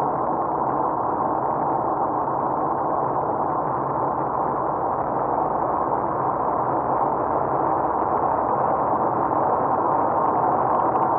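Steady tyre, road and engine noise of a car driving at road speed, heard from inside the cabin.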